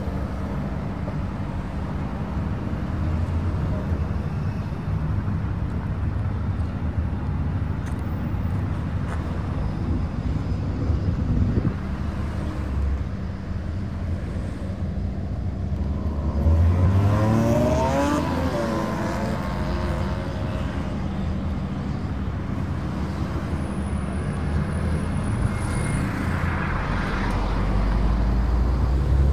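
Street traffic going by, a steady low rumble, with one vehicle passing close and loudest about seventeen seconds in.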